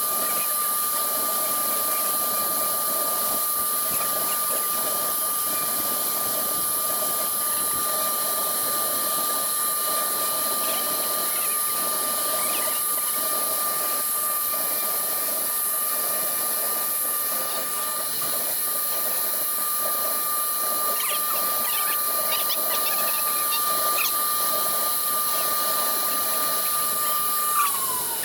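CNC router spindle running steadily while engraving MDF: a constant high whine over an airy hiss. The whine drops in pitch just before the end.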